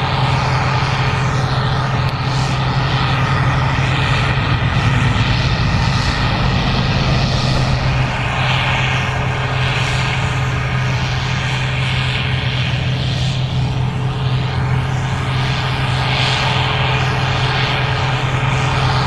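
Gleaner R65 combine running steadily while harvesting corn: a constant low engine and machinery drone with a rushing hiss that swells and fades.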